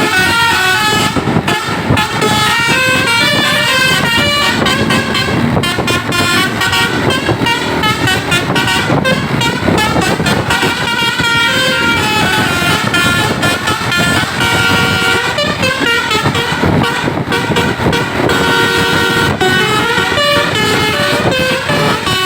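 Bus telolet basuri horns playing rapid multi-note tunes, the notes stepping up and down almost without pause, over a low rumble of engines and traffic.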